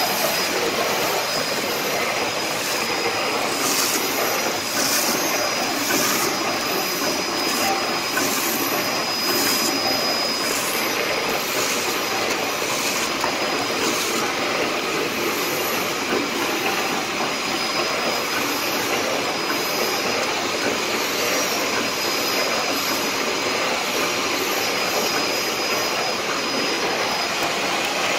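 Play dough packing machine running steadily: a continuous mechanical din with a thin high whine over it. In the first half there is a run of short, high hissing ticks, a second or so apart.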